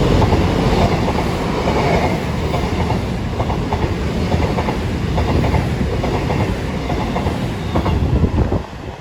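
Two coupled Class 221 Super Voyager diesel-electric units running through the station, a loud steady rumble of underfloor engines and wheels with rail-joint clicks. The noise drops sharply near the end as the train clears.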